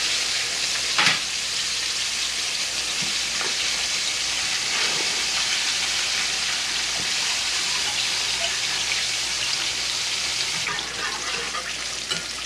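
Breaded chicken pieces frying in hot oil in a skillet: a steady sizzle, with one sharp clack about a second in.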